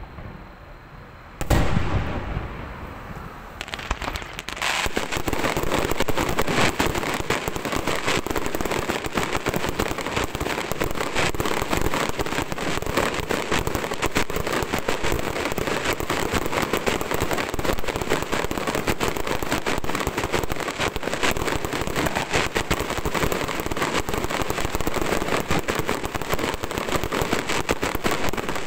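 A fireworks display: one loud bang about a second and a half in, then from about four seconds in a dense, continuous crackling from ground-level fireworks.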